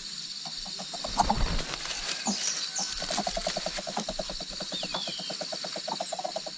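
A bird gives a fast run of low clucking notes, about nine a second, starting about three seconds in, with a short high chirp near the middle. A rustling thump sounds about a second in, and insects buzz steadily throughout.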